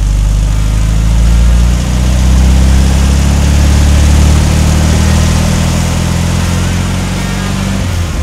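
Recorded Volkswagen Beetle air-cooled flat-four engine idling steadily, played by the 1:4 scale model engine's built-in sound module. It cuts off just before the end.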